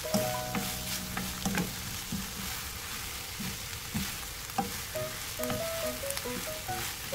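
Cabbage, bacon and green onions sizzling in a frying pan while a spatula stirs them, with short scrapes and knocks against the pan now and then.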